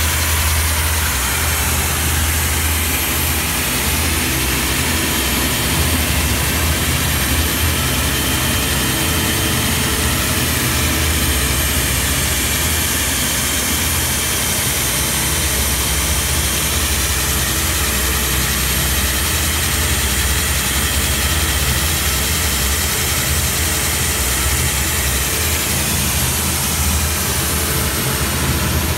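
Diamond core drill running steadily as its bit grinds into reinforced concrete: a loud, unbroken machine noise with a deep hum underneath.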